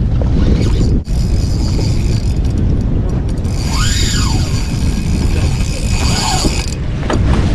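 Strong wind rumbling on the microphone aboard a small boat, with the mechanical whirr of a spinning reel being cranked against a hooked kingfish. A whistling tone rises and falls about four seconds in, and a shorter, fainter one follows about two seconds later.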